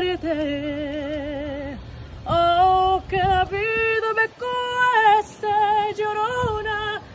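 A woman singing a slow melody in long held notes, some with a wide vibrato, in phrases with short breaths between them.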